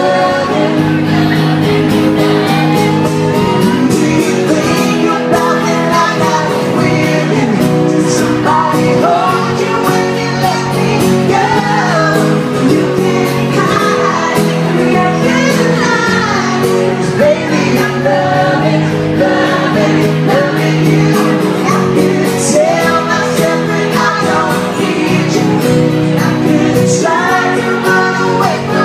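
Live pop song: a woman's lead vocal sung into a microphone over guitar accompaniment.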